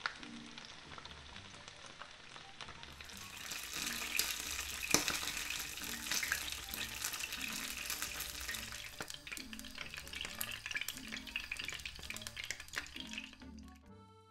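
Tomato fritters sizzling as they shallow-fry in hot oil, with frequent sharp pops of spitting oil. The sizzle gets louder about three seconds in and stops suddenly near the end.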